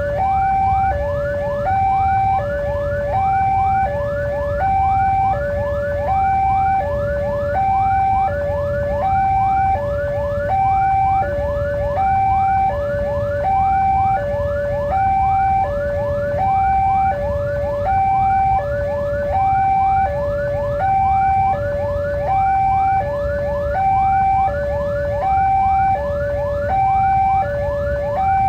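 Railway level-crossing warning alarm sounding continuously: an electronic two-tone signal switching between a lower and a higher pitch about every 0.7 seconds, with rapid repeated ringing strokes over it and a steady low rumble underneath.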